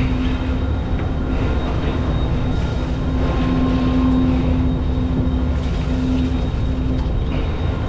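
Steady machinery drone aboard a large sportfishing boat: a constant low rumble with a steady hum over it.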